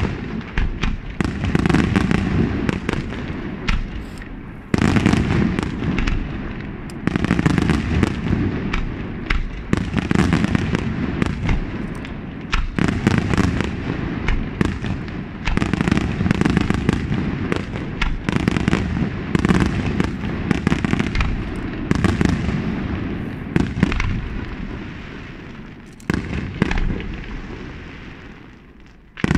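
Aerial fireworks display: a rapid, near-continuous barrage of shell bursts, booms overlapping with the crackle of bursting stars, easing off in the last few seconds.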